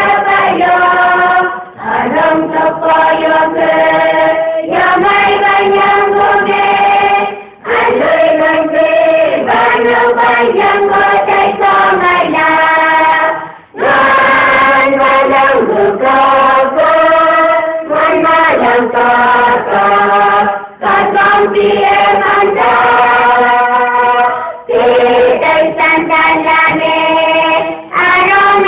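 A large group of young people singing together, a song in long held phrases with short breaks for breath every few seconds.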